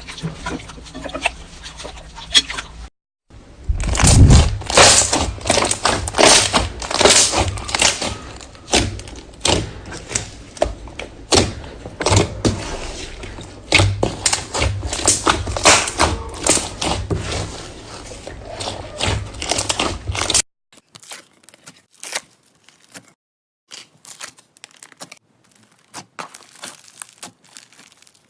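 Hands squeezing and poking slime: a dense run of irregular sticky pops, clicks and crackles. The sound changes abruptly about 3 seconds in and again about 20 seconds in, and is quieter and sparser after the second change.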